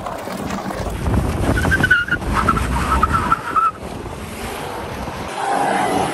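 Porsche Cayenne driven hard, wind buffeting the microphone over the car's rumble, with its tires squealing briefly from about a second in.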